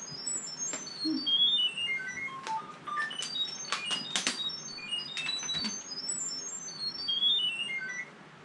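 A meme clip's soundtrack from a TV speaker: a melody of short electronic beeps that steps down in pitch, played twice over, mixed with sharp clicks. It cuts off suddenly near the end.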